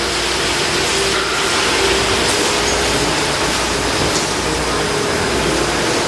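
Rotary bottle rinser running on a bottling line: a steady rushing of water spraying from the rinsing nozzles over the machine's hum.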